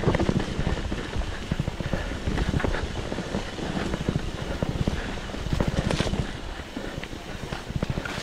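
Mountain bike rattling and clattering over rough, rocky ground, with tyres knocking and the frame and chain shaking, and a louder clatter about six seconds in. A steady wind rumble on the microphone lies underneath.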